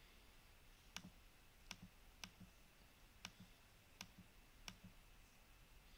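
Faint clicks of a computer mouse, about six single clicks spaced half a second to a second apart, stepping through the moves of a chess game on screen.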